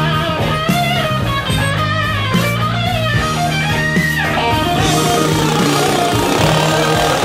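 Rock music with a lead electric guitar line over bass, without singing.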